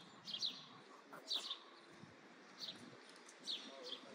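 Small birds chirping: short, high calls, roughly one a second, over a faint steady hiss.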